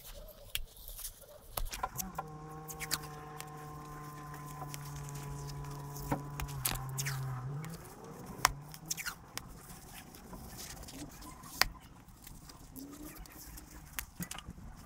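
Rustling and crackling of fiberglass silencer packing wool being rolled and wrapped in tape by hand, with scattered sharp clicks and two louder snaps in the second half. Behind it, from about two seconds in, a steady low droning tone with overtones holds for about five seconds, then dips and stops.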